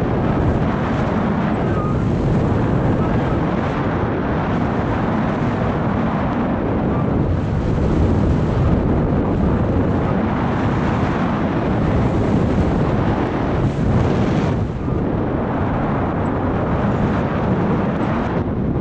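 Wind rushing steadily over the microphone of a paraglider pilot's action camera in gliding flight, a loud, even, low rumble with no other sound standing out.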